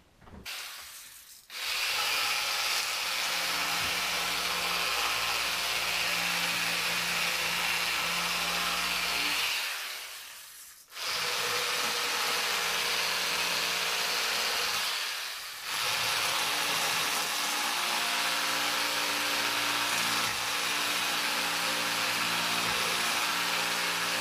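Cordless reciprocating saw with a long, flexible flush-cut blade running steadily, trimming protruding spindle and leg tenon ends flush with a hardwood chair seat. It cuts in three long runs, pausing about ten seconds in and briefly again around fifteen seconds.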